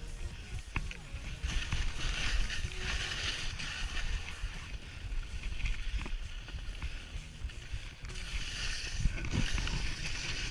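Skis sliding and scraping over snow, a hiss that swells and fades with each turn, over a low rumble of wind on the microphone.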